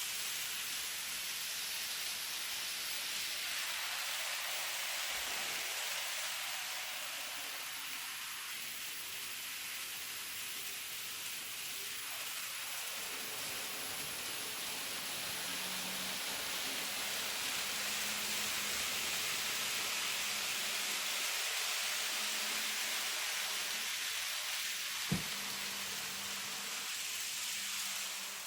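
N gauge model train running along the layout's track: a steady hiss of small wheels on rail with a faint motor hum that comes and goes, and a single sharp click a few seconds before the end.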